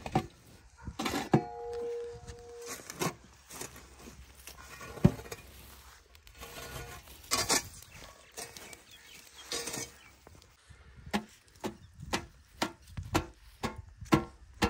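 A metal spade scraping through ash and embers and knocking against a square metal tin, in irregular strokes. One knock about a second in leaves a brief metallic ring.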